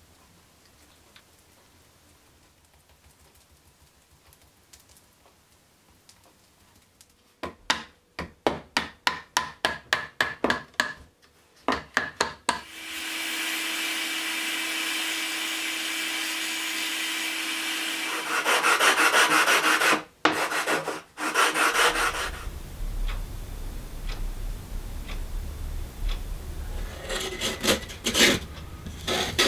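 Hand strokes rasping on a workpiece at about two a second, then a handheld rotary tool with a cut-off disc running with a steady whine and cutting into a carbon-fibre part, louder and harsher as the disc bites. Near the end, a rougher rubbing with a low rumble.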